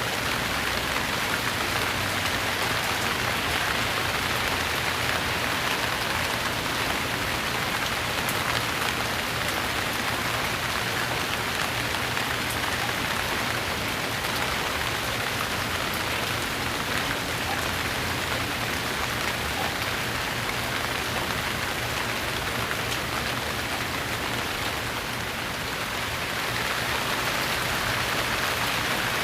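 Steady rain falling, a continuous even hiss of raindrops on surfaces.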